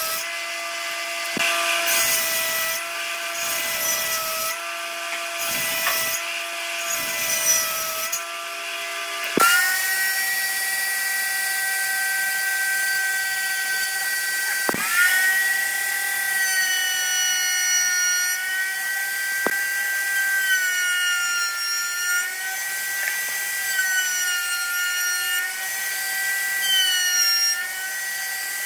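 A woodworking power tool running with a steady whine. For the first nine seconds it cuts in repeated strokes about every second and a half. Then, after a sudden change, it runs on with a higher whine that dips briefly in pitch several times.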